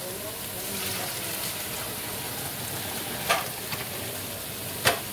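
Green pumpkin-seed sauce frying with a steady sizzle, with two sharp knocks about three seconds in and near the end.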